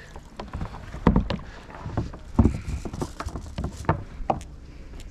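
Irregular knocks and splashes of a paddle working a small boat on the water, the two loudest about a second and two and a half seconds in.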